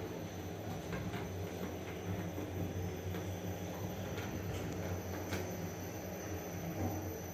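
Machine-room-less ALSA passenger elevator car travelling upward at full speed, heard from inside the cab: a steady low hum and rumble of the ride with a few light clicks.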